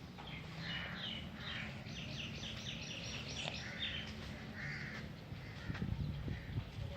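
Birds calling outdoors, likely crows cawing, in a run of short repeated calls, quickest in the middle, over a low steady hum.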